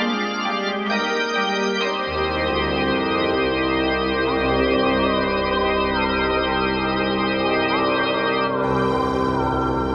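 Background music: sustained organ-like electronic keyboard chords, with a low bass coming in about two seconds in and short sliding notes above.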